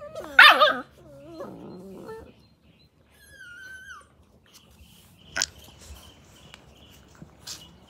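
Australian Cattle Dog (blue heeler) puppies vocalizing in play: a sharp high bark about half a second in, then quieter growling and a short high whine that falls at its end.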